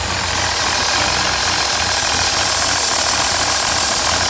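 Mini Cooper engine idling cold, with a steady high hiss over the engine note: the cold-start whistle that the owner traced to a faulty crankcase ventilation (PCV) valve.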